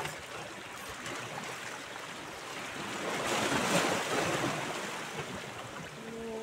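Small sea waves lapping and washing against shoreline rocks, a steady rush that swells louder for a moment about three seconds in.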